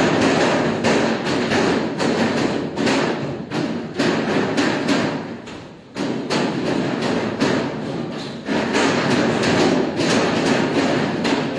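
Rope of hand-pulled noodle dough slapped and knocked against a stainless steel worktable, a quick run of repeated thuds with a brief lull about five seconds in.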